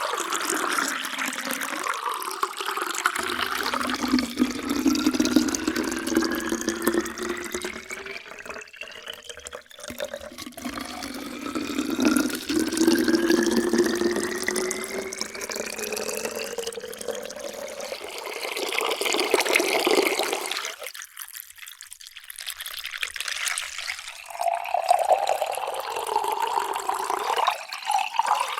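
Water poured from a height into a drinking vessel, splashing and gurgling, with a ringing pitch that slowly rises as the vessel fills. Several pours follow one another, with a short break a little past two-thirds of the way through.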